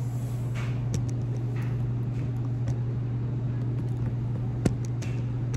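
A steady low hum with a few light clicks and knocks, one sharp click near the end.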